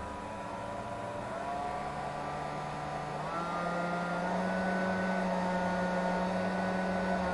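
Hair dryer's fan motor whirring steadily. Its pitch steps up about a second in, again around three seconds and once more past four seconds, and it grows louder as it speeds up. The speed is being set by an Arduino from the brain-data reading of an EEG headset.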